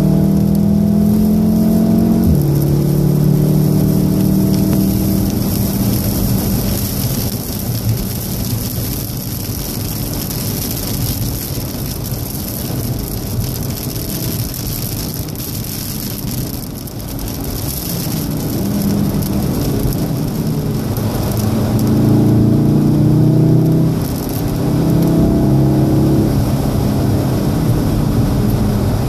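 Inside the cabin of a 2014 VW Golf VII R at speed on a soaking wet track: the turbocharged four-cylinder engine pulls hard, with its pitch dropping at a gear change about two seconds in. Through the middle a steady hiss of rain and tyre spray covers the engine, which comes back from about 18 seconds in with several steps in pitch as the car brakes and changes gear.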